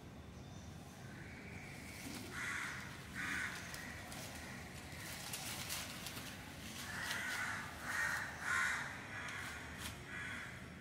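A bird giving short, harsh calls, about seven in all, the loudest pair a little past the middle, with faint rustling between them.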